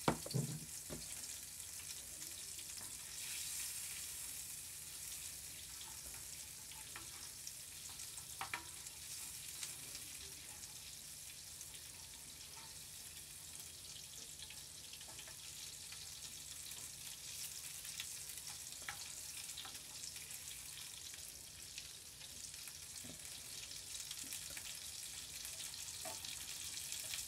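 Butter sizzling as it melts in a small copper sahan over a wood fire: a steady, faint frying hiss, with a few small clicks scattered through it.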